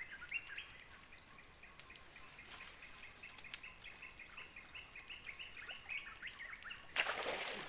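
Steady high insect drone with many short bird or insect chirps and a single sharp click about halfway. Near the end comes a sudden loud splash as a giant snakehead (toman) strikes the lure at the water's surface.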